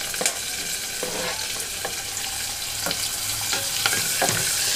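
Chopped onions and green chillies sizzling in hot oil in an aluminium pressure cooker, a steady frying hiss, with a wooden spatula scraping and knocking against the pot several times as they are stirred.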